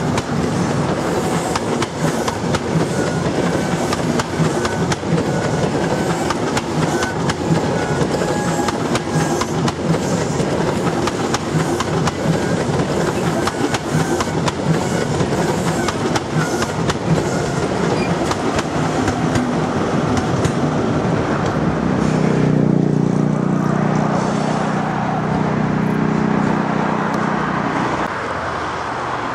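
InterCity 125 coaches rolling past on jointed track, wheels clicking steadily over the rail joints. About 22 s in, the rear Class 43 power car passes with its diesel engine running, and the sound drops away near the end as the train leaves.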